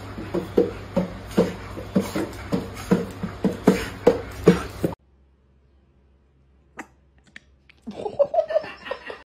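A dog barking in quick, short barks, about two to three a second, stopping suddenly about halfway through.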